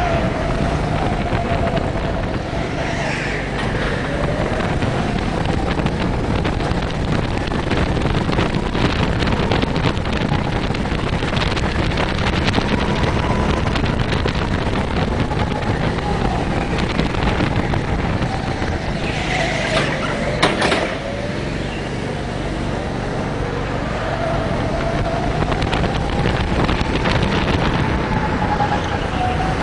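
Go-kart heard from the driver's seat while being driven: its motor's pitch rises and falls with the throttle lap after lap, over a steady rush of wind noise on the microphone. A brief, louder burst of noise comes about two-thirds of the way through.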